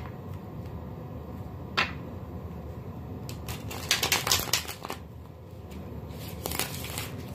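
A deck of tarot cards being riffle-shuffled by hand. There is a tap about two seconds in, then a rapid flutter of riffling cards around four seconds in, and a shorter flutter near the end as the cards are bridged back together.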